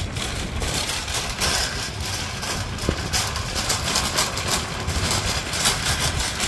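A vehicle running: a loud, steady rush of engine and road noise with no clear pitch.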